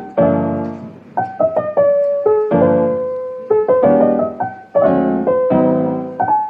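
Background piano music: chords struck about once a second with a melody line above, each note fading away.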